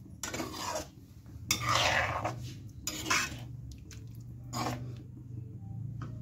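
A metal slotted spoon stirring and scraping curry in a metal kadhai: several scrapes, the loudest about two seconds in, over a low steady hum.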